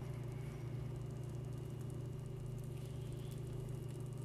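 Omelette frying gently in a nonstick pan, a faint sizzle under a steady low hum.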